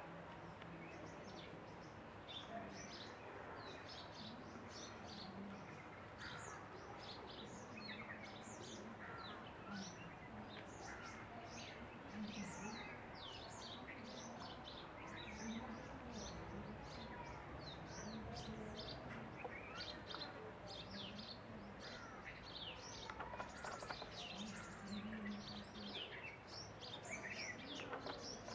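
Many small birds chirping at once: a continuous chorus of short, high calls, faint overall.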